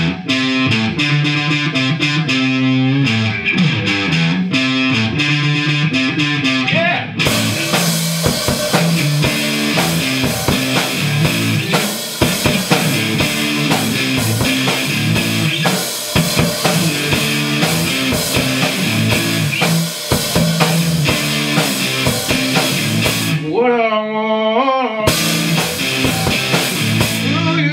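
Electric guitar and drum kit playing a rock jam together, the guitar riffing over a steady beat. About seven seconds in the cymbals come in hard and keep washing over the band, then drop out for about a second and a half near the end while a wavering bent note rings out.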